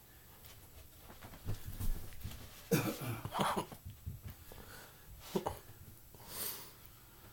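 A person coughs in a short cluster of bursts about three seconds in, among a few light knocks and handling clicks.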